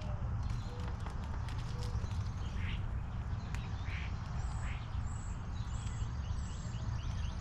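Wild birds calling: a few short harsh calls, and a run of about four short high whistles through the middle, over a steady low rumble.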